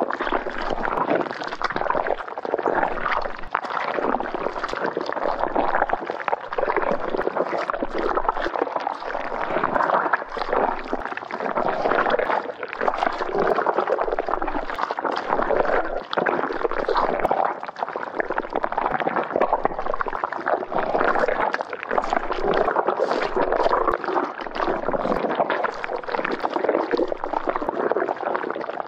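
Slime being squished: a continuous run of wet squelching, with many small sticky clicks and pops.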